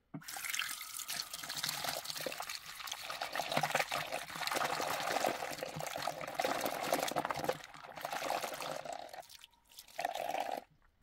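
Tap water running into a sink of soapy water while a hand swishes and rubs a clear plastic phone case in the suds. The flow comes on suddenly as the tap is opened, drops briefly about nine seconds in, and cuts off sharply shortly before the end.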